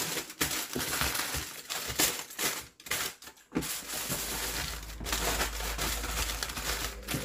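Crinkling and rustling of packaging being handled, broken by two short pauses about two and a half and three and a half seconds in.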